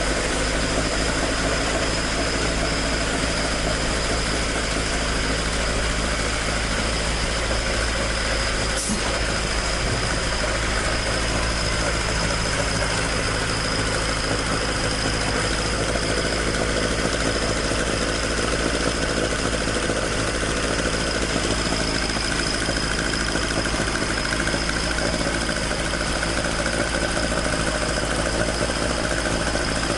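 Toyota AE86's 4A-G twin-cam four-cylinder engine idling steadily through its stock exhaust, with the exhaust leak repaired. A single brief click about nine seconds in.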